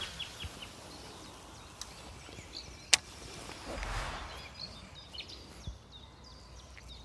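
Small songbirds chirping in short, quick calls that grow busier towards the end, over light outdoor ambience. A single sharp click stands out about three seconds in, and a brief soft rustle follows around four seconds.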